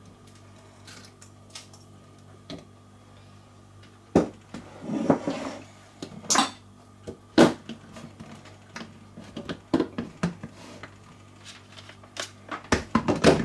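Scattered knocks and clicks of plastic kitchenware being handled: chopped onion scraped into a food processor bowl, with a short rustle a few seconds in, then the processor's plastic lid knocked into place near the end. The motor is not running.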